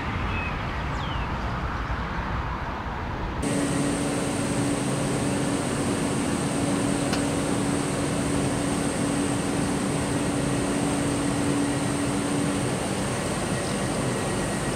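Steady electrical hum of a standing Go-Ahead electric multiple unit's equipment, a constant low tone under a thin high whine. It starts suddenly about three seconds in, after a duller, even rumble.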